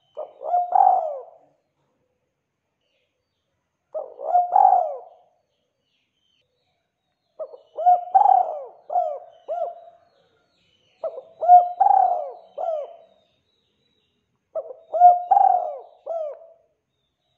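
Spotted dove (tekukur) cooing: five phrases about three and a half seconds apart, each a quick run of short, hoarse coo notes. The first two phrases are short, and the last three are longer, with extra trailing notes at the end.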